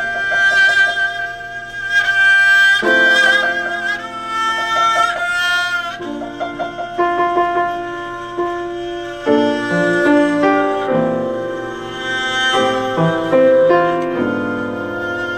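Chamber music played live: a violin holds long notes with vibrato over piano accompaniment, the piano part growing busier in the second half.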